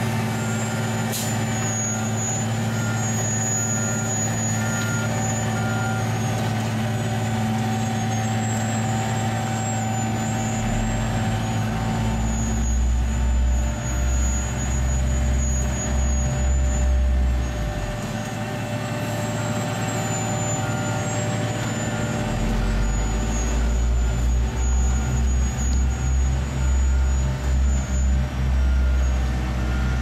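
Asphalt paver's diesel engine running steadily. A deeper, heavier low rumble from more heavy machinery joins about ten seconds in, fades near the middle, and returns, pulsing, for the rest of the time.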